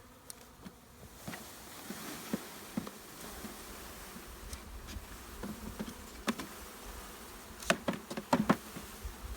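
Honeybees buzzing steadily in a loose cloud around an opened package and hive, with a few sharp knocks near the end.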